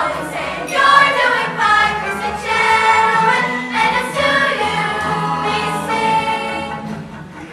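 Seventh-grade show chorus of young voices singing together, holding long sustained notes.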